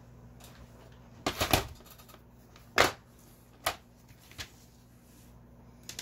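Sharp plastic clicks and knocks as a clear plastic parts-organizer box is set down on a wooden desk and handled: a quick cluster about a second in, then three single clicks spaced about a second apart, over a low steady hum.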